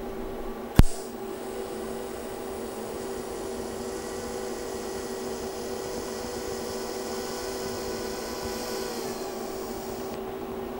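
TIG welding arc fusion-welding an aluminized mild steel exhaust pipe: a sharp crack as the arc strikes about a second in, then a steady hissing buzz that cuts off near the end. A steady hum runs underneath.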